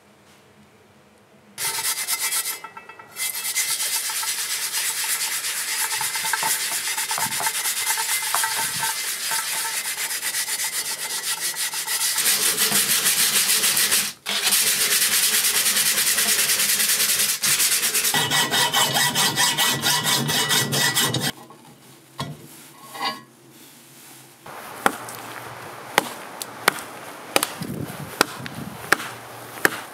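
Rust being hand-sanded off a mattock's steel blade with an abrasive sponge: a loud, steady scraping, cut into several takes. Near the end it gives way to sharp blows a little more than once a second, the mattock chopping into wood.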